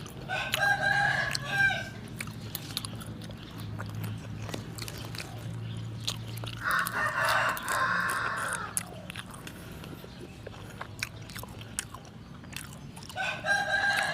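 Rooster crowing three times: about a second in, midway, and again near the end, each crow about a second and a half long.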